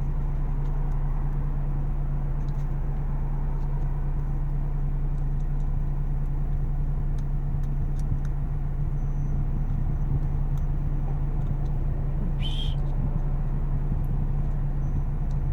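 Steady low mechanical hum with a few faint clicks, and a short high-pitched chirp about twelve seconds in.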